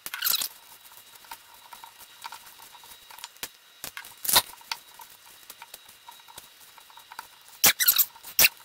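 Silicone spatula folding soft cookie dough in a stainless steel bowl: scattered small sticky clicks and squelches, with louder squeaks about four seconds in and twice near the end.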